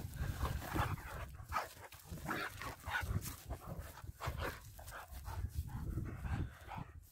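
German Shepherd dogs playing together, making irregular short dog noises throughout.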